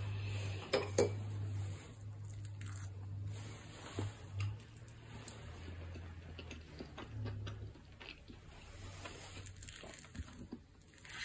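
A metal spoon scooping and stirring thick curry rice in an instant-food paper cup: soft squishing with light taps and scrapes of the spoon against the cup, and two sharp clicks about a second in. A low hum runs underneath until a little past halfway.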